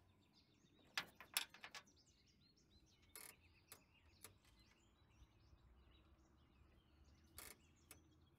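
A few light metallic clicks and taps as a carburetor is set onto the intake manifold and a bolt worked through its base by hand, the loudest cluster about a second in. Birds chirp faintly in the background.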